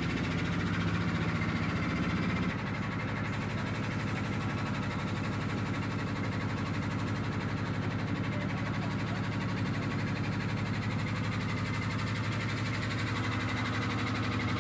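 Tour boat's engine running at a steady pace, a low even drone heard from on board, its tone shifting slightly about two and a half seconds in.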